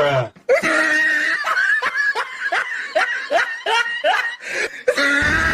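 A person laughing in a run of short rhythmic laughs, about three a second, each dropping in pitch.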